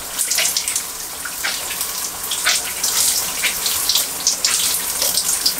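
Shower water running as a steady hiss, with irregular wet splashes and squelches as handfuls of water are scrunched into wet, gel-coated curly hair.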